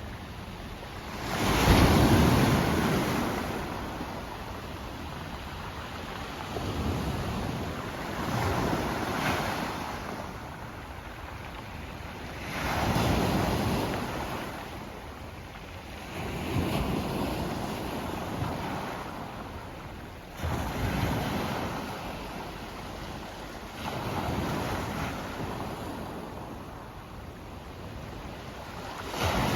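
Sea waves breaking and washing over a pebble beach, one surge every few seconds rising and falling away, the loudest about two seconds in.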